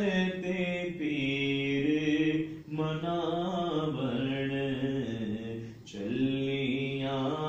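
A man's voice chanting a devotional recitation in long, held melodic phrases, pausing briefly for breath about two and a half and six seconds in.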